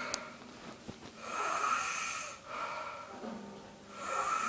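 Snoring: two drawn-out snoring breaths about three seconds apart, with a low hum between them.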